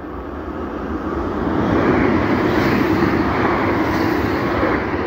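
Two coupled SNCF Z 27500 electric multiple units passing close by at speed: the rush of wheels on rail and air builds over about two seconds, holds, and begins to fade near the end.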